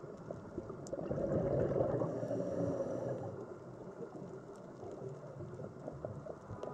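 Underwater ambience: a muffled, unpitched rush of water with many small scattered clicks and crackles, a little louder from about a second in.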